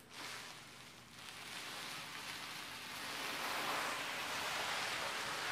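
A body dragged across a dirty concrete floor: a continuous scraping rustle that grows louder about three seconds in.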